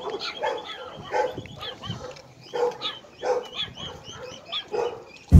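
Dogs barking in a quick run of short barks and yips, two or three a second.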